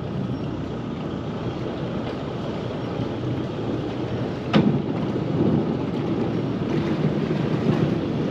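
Wind rumbling on the microphone, with one sharp knock about four and a half seconds in.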